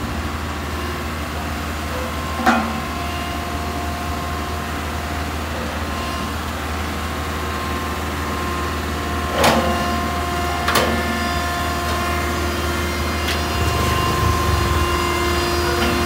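Single-drum road roller's diesel engine running steadily as the roller drives up the steel loading ramps onto a lowbed truck, a low drone with a steady whine over it. A few sharp metallic knocks, about two and a half, nine and a half and eleven seconds in, the middle one the loudest.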